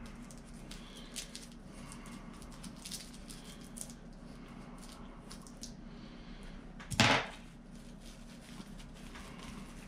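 Faint rustling and small clicks of a stitched plush toy being cut and pulled open by hand, with one short, louder noise about seven seconds in.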